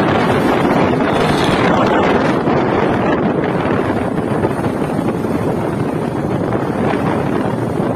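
Steady, loud wind rush on the microphone of a phone riding on a moving motorcycle, with vehicle noise mixed in underneath.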